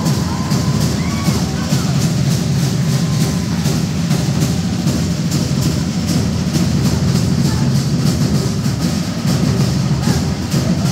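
Fast, steady drumming accompanying a fire knife dance, with a dense low beat that runs without a break.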